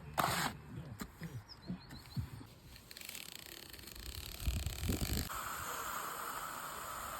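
External rendering work on a wall: a few irregular scrapes and taps from tools working the render, then a steady hiss that starts about five seconds in and carries on.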